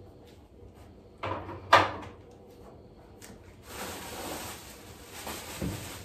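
Eggs being put away in an open refrigerator: light knocks and clicks of plastic shelves and trays being handled, the sharpest a click a little under two seconds in, with a stretch of soft rustling later on.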